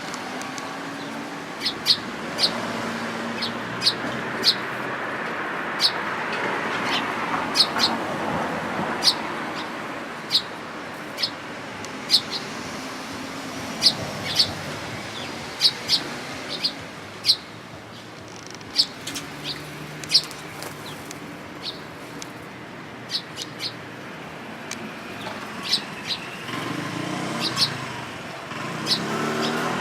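Eurasian tree sparrows chirping: short, sharp high chirps, often in pairs, every second or so. Behind them is road traffic, swelling as a vehicle passes in the first third and with an engine hum rising near the end.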